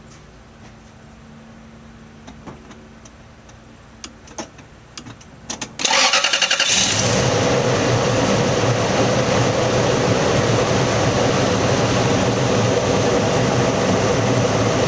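A few light clicks, then about six seconds in the starter of a 2000 Toyota Land Cruiser cranks for about a second and the engine catches into a steady, fast cold idle. The owner hears the start-up as a sign of a possible exhaust manifold leak.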